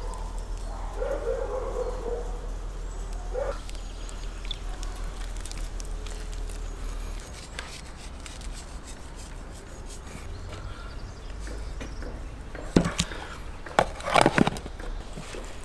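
Steady low background hum, then a few sharp clicks and knocks near the end as objects on the table, such as a plastic container, are handled.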